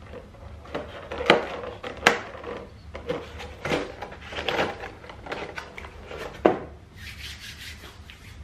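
Close-up eating and table-handling noises at a meal: irregular rubbing and scraping, three sharp clicks, and a short stretch of crinkling near the end.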